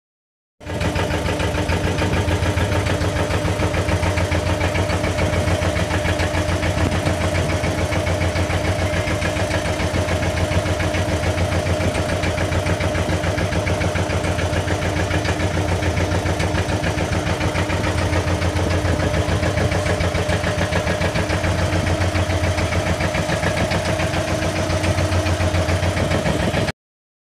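A fishing boat's engine running steadily at a constant speed with a fast, even pulse and a strong low hum. It cuts off abruptly near the end.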